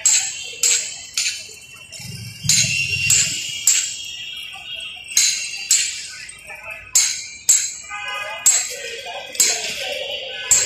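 Repeated sharp metallic clinks, metal striking metal, coming roughly every half second to a second with short pauses, each ringing briefly. A low rumble passes about two seconds in.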